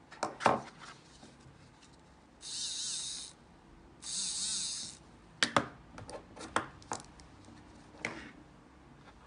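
Small tools handled against a MacBook Pro's aluminium bottom case: a few sharp clicks and taps near the start and again through the second half. In between come two hissy rasps of about a second each.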